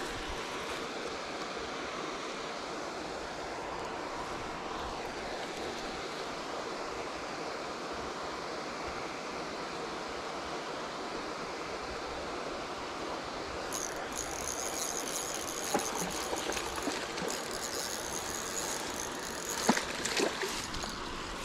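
Steady rushing background noise. About fourteen seconds in, a thin high whine joins it. Near the end a hooked trout splashes at the surface, with a few sharp splashes and knocks.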